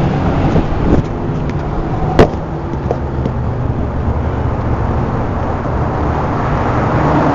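Steady outdoor rumble like street traffic, with a single sharp knock about two seconds in.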